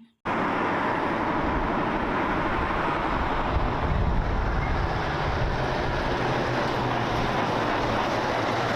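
Steady vehicle rumble with a low engine-like drone, holding an even level throughout; it cuts in abruptly just after the start.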